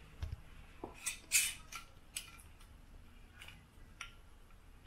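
Glass mason jars handled and a metal screw band unscrewed from one: a scattering of faint clicks and scrapes, the strongest a little over a second in.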